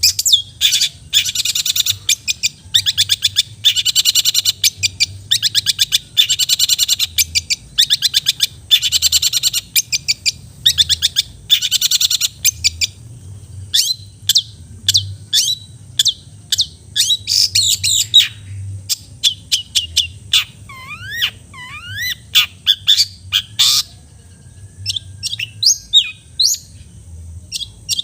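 Long-tailed shrike (cendet) singing loudly: for the first half a fast, scratchy chattering of rapid notes in long runs, then separate sharp chips and, a little past the middle, a few whistled notes gliding up and down.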